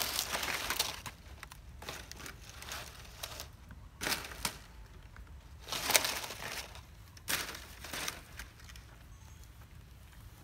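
Dry palm fronds rustling and crackling as they are dragged and lifted by hand, in several loud bursts: at the start, about four seconds in, and again around six and seven and a half seconds, with lighter rustling between.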